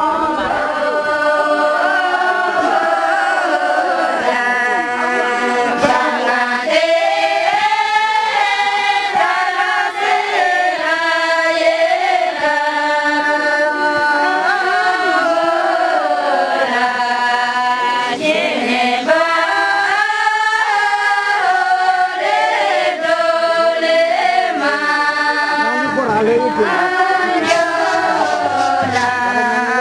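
A group of Tamang villagers singing a traditional Mane song in unison without instruments, in long held phrases with short breaks between them.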